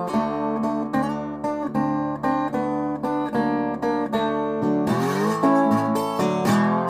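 Background music: acoustic guitar, plucked and strummed in a steady rhythm, with notes sliding upward about five seconds in.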